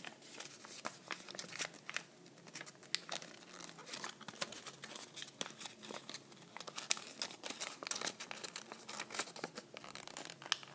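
Patterned origami paper crinkling and rustling as it is folded and creased by hand: a steady run of small, irregular crackles.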